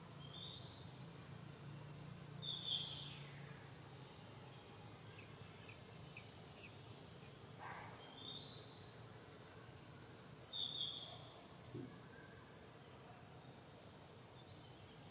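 Forest ambience: birds calling now and then with short high chirps and whistles, loudest about two seconds in and again about ten seconds in, over a steady hiss of insects.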